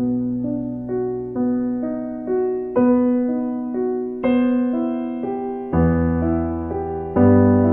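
Slow, gentle solo piano music: single notes struck one after another, each left to ring and fade, with deeper bass notes joining near the end.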